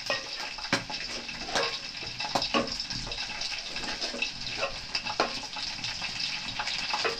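Curry chicken sizzling and bubbling in a cooking pot, a steady hiss broken by a few sharp clicks.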